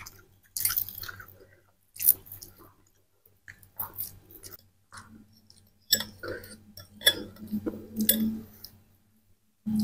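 People chewing and eating rice with salted fish close to the microphone: irregular wet clicks and crunches.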